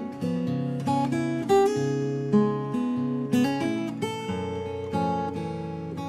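Background music: strummed acoustic guitar chords.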